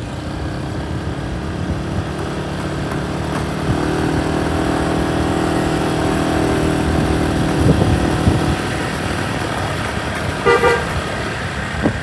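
Tour bus's multi-tone 'telolet basuri' horn holding one chord of several notes for about five seconds, over the running of vehicle engines. A short second toot comes near the end.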